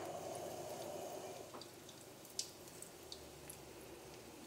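Breadcrumb-coated shrimp just laid into hot oil, frying with a faint sizzle and a few scattered small pops. The sizzle drops a little after about a second and a half.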